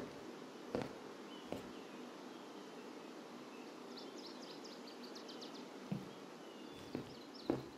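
Quiet outdoor ambience: a steady hiss with small birds chirping, including a quick run of high chirps about four seconds in. A few soft thumps fall here and there.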